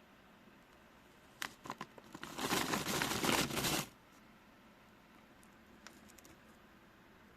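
Plastic potato-chip bag being handled: a few sharp crackles, then about a second and a half of loud, dense crinkling and tearing of the bag, then a few faint crackles near the end.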